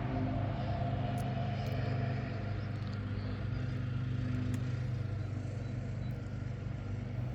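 Car engine idling steadily, a low, even hum.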